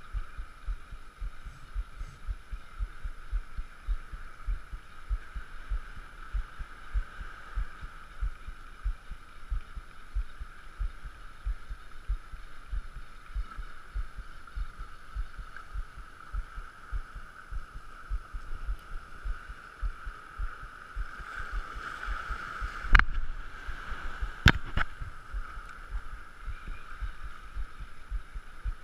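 Spinning reel cranked steadily to retrieve a lure, heard as a quick, even run of low thumps over a steady sea hiss. Two sharp clicks come about two-thirds of the way in.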